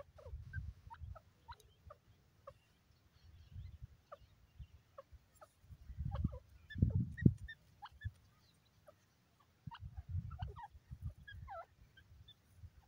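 Faint short bird chirps and whistles scattered throughout, over low rumbling noise on the microphone that swells loudest about six to seven seconds in.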